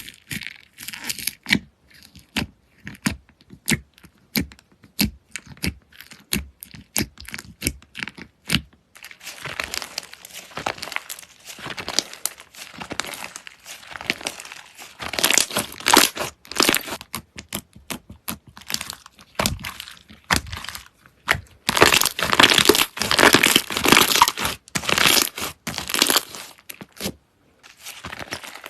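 Slime being squished and poked by hand, making sharp clicking pops at first, then denser stretches of crackling that are loudest about halfway through and again later.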